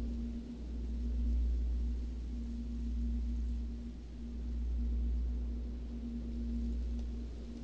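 A deep, low ambient drone that slowly swells and fades every few seconds, with a steady hum-like tone above it that drops out briefly a few times.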